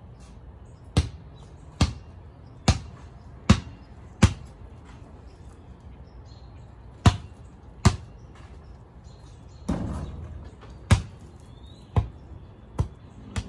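A basketball being dribbled on a concrete driveway: single sharp bounces about once a second, in two runs with a pause of a few seconds between them. A longer, rougher sound comes about two-thirds of the way through.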